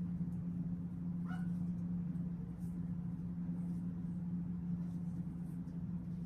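A dog gives one short, high whine about a second in, over a steady low hum.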